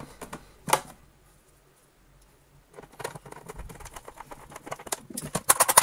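Screwdriver turning a switch screw into a vacuum cleaner's plastic hood: small scratchy clicks, one louder click about three-quarters of a second in, a short lull, then a faster run of clicks that gets louder near the end.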